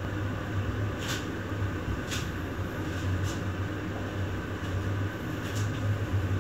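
Steady low hum of a small room's air conditioning. A few faint, brief hisses come through, about a second apart at first.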